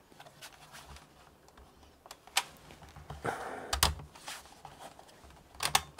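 Scattered plastic clicks and knocks from hands pressing and sliding the bottom access cover of an HP ProBook 640 G1 laptop. There is a short scrape just after three seconds in, and the loudest knock comes near four seconds in.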